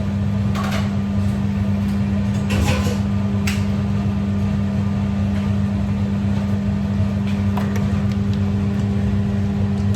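A loud, steady motor hum from a running kitchen appliance, with a few light clinks of dishware scattered through it.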